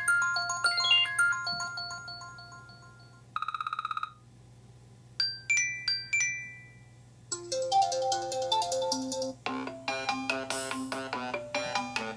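New iOS 7 iPhone ringtones previewed one after another, each cut off as the next begins. First comes a chiming tune of bell-like notes. About three seconds in there is a brief rapid buzzing tone, then a few sparse chime notes, and from about seven seconds in a fuller melody with several instruments.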